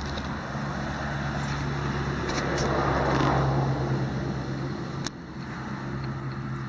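A car driving past, its noise swelling to a peak about halfway through and then fading, over a steady low hum.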